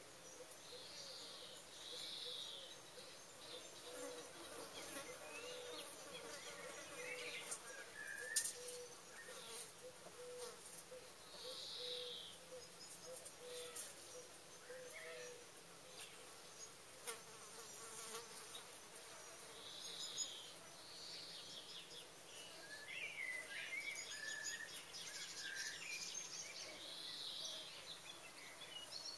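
A flying insect buzzing near the microphone, faint and wavering, mostly in the first half. Birds call now and then, with scattered light clicks.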